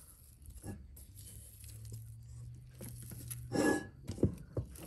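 Sticky, oiled bread dough being lifted off the side of a stainless steel mixing bowl with a silicone spatula and laid back in: soft tearing and peeling sounds, loudest about three and a half seconds in, followed by a few light taps. A low steady hum runs underneath for a couple of seconds.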